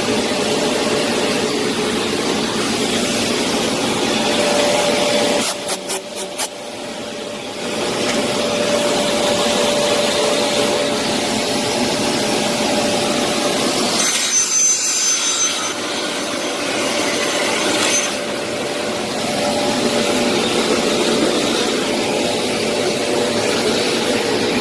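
Aluminium-cutting circular saw machine running and cutting aluminium, a loud steady whine. About six seconds in it dips briefly with a few sharp clicks, and from about fourteen to eighteen seconds the sound changes, with added high, thin tones.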